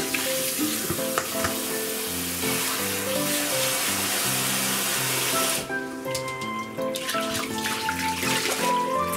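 Kitchen faucet spray pouring onto julienned potatoes in a stainless-steel mesh strainer as they are rinsed and swished by hand; the water shuts off about two-thirds of the way through. Background music plays throughout.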